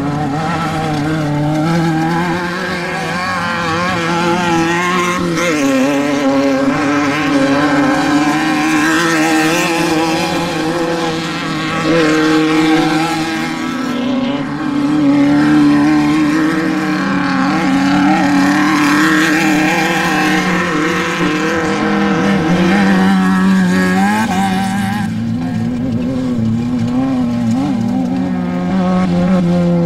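Engines of off-road desert race vehicles running hard, their pitch rising and falling with throttle and gear changes, at times two engines heard at once.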